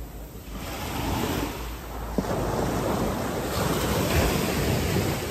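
Sea surf washing onto the beach in a steady rush, with wind buffeting the microphone.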